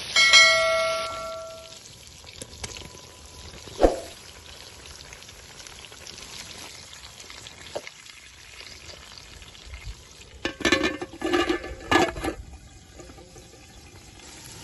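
A bell-like chime rings out at the start and fades over about a second and a half. Under it, food sizzles quietly in an aluminium karahi over a wood fire. There is a single knock about four seconds in, and a burst of clattering a little over ten seconds in.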